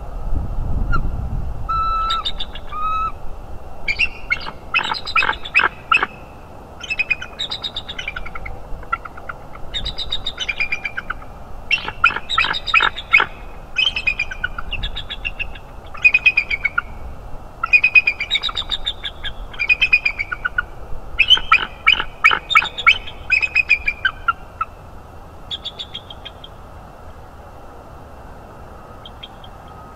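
A pair of bald eagles calling together in their morning duet: bouts of high, rapid chittering and piping notes that start about two seconds in and fade to a few faint calls near the end.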